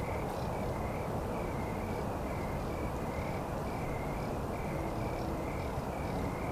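Evening outdoor ambience: a small animal calling with a short, high chirp repeated steadily about twice a second, over a steady background hiss.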